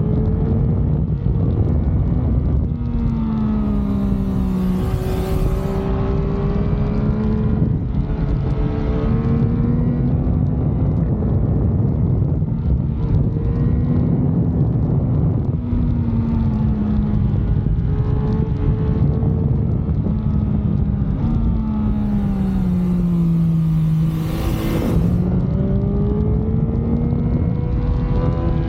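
Yamaha MT-09's three-cylinder engine and exhaust under way, the engine note rising and falling gently with the throttle over a heavy low rumble. Near the end the pitch drops, then climbs again.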